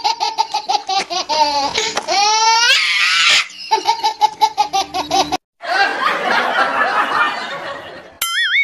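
Laughter sound effects: a fast, regular "ha-ha-ha" laugh with a sliding-pitch laugh in the middle. After a brief break comes a looser, noisier stretch of laughing, and near the end a wobbling cartoon-style tone starts.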